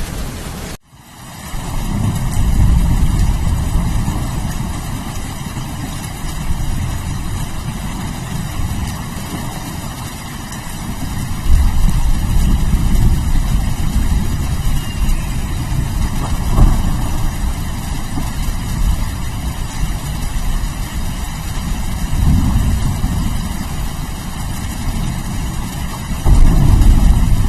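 Steady rain under a continuous deep rumble of rolling thunder that swells louder several times. The sound cuts out briefly about a second in, then builds back up.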